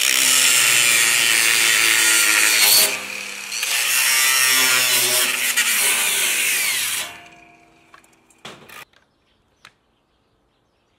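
Angle grinder with a thin cut-off wheel cutting through a tack weld on 3/16-inch steel plate, loud and steady, letting up briefly about three seconds in. After about seven seconds it spins down, and a couple of short knocks follow.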